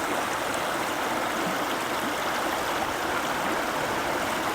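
Small river's water rushing and gurgling steadily.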